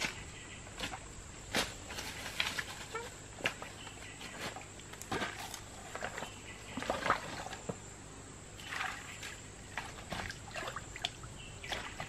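Footsteps on loose stones, then hands lifting rocks and mud and sloshing in a shallow, trickling stream. Irregular stone knocks and small splashes.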